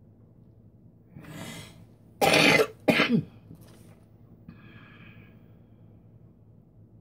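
A woman coughing twice, two short loud coughs about two seconds in, just after a breath in.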